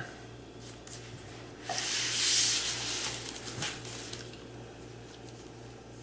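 Rustling scrape of parchment paper on a sheet pan about two seconds in, lasting about a second and a half, as a trimmed strip of puff pastry is laid on it; a faint low hum underneath.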